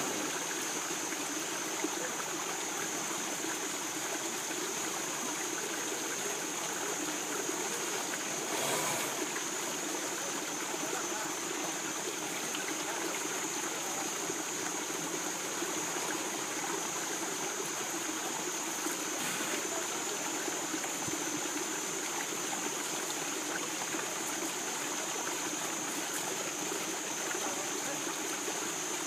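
Shallow river running over stones: a steady rush of flowing water, with a brief louder burst about nine seconds in.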